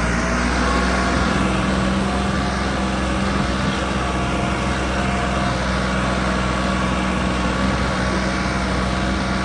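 New Holland 3630 tractor's three-cylinder diesel engine running steadily under load, with no change in pitch, as the tractor drives through loose sandy soil.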